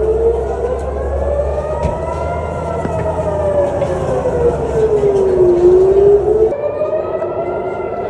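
Civil-defence rocket-warning siren wailing, its pitch rising and falling slowly, one full rise and fall in about five seconds. A low rumble underneath stops abruptly about two-thirds through.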